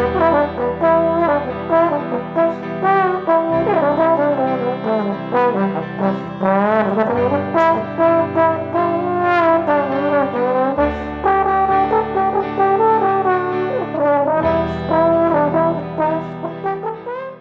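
Instrumental music: a gliding melody over a changing bass line, cutting away at the very end.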